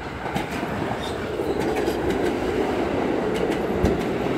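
R46 subway train pulling into the station alongside the platform, its running rumble growing louder with the clicking and clattering of its wheels on the rails. A brief low thump comes near the end.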